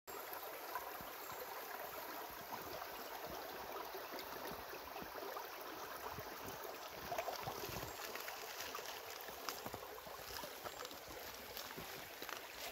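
Shallow creek flowing over rounded rocks, a steady rush and babble of water.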